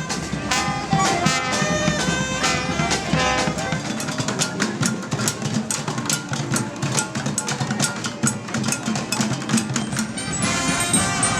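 Street marching band playing: horns carry a melody in held and moving notes over busy drumming, and the sound changes about ten and a half seconds in.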